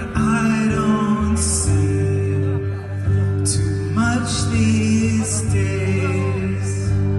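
A man singing a melody over sustained electric guitar chords in a live solo performance.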